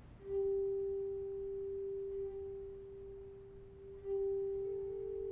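Music: a pure, bell-like chime tone struck twice, about four seconds apart, each ringing on and slowly fading. A slightly higher tone joins it near the end.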